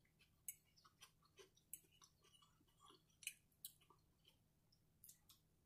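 Faint chewing of a mouthful of food, with soft, irregular crunches and mouth clicks.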